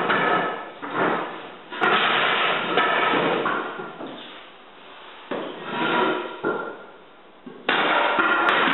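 Hardwood floor boards being handled and knocked into place: spells of wooden clatter, with sharp knocks about two seconds in, a second later, and again near the end.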